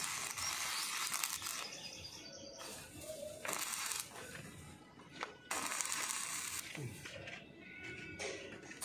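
Stick (arc) welding: the electrode arc crackles and sputters as steel is welded to the column rebar, in several bursts of a second or so with short pauses between.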